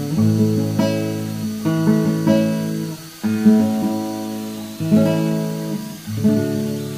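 Acoustic guitar music: chords strummed about once a second or so, each left to ring and fade.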